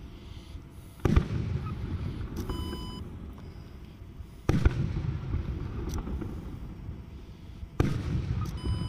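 Aerial fireworks shells bursting at a distance: three heavy booms about three and a half seconds apart, each trailing off in a long echoing rumble. A short high beep sounds twice, between the booms.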